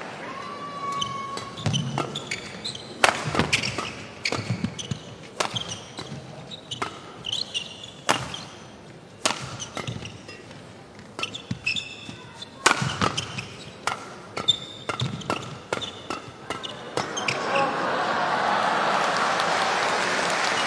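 Badminton rally in an indoor hall: a long irregular run of sharp racket strikes on the shuttlecock, with short squeaks of shoes on the court between them. About 17 seconds in, the crowd breaks into applause that carries on to the end.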